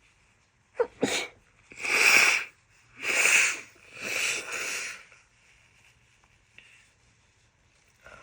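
A woman with a heavy cold sneezing: a sharp sneeze about a second in, then three loud, noisy, breathy blasts about a second apart, and the start of another near the end.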